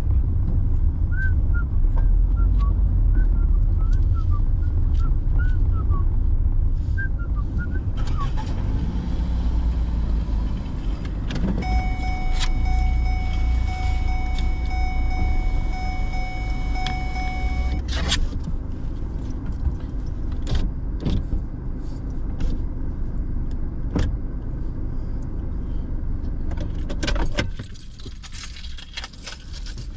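Car engine and cabin rumble from inside the car as it creeps through a parking lot and sits idling, with a steady high tone lasting about six seconds midway. About two seconds before the end the engine is switched off and the rumble drops away, followed by keys jangling.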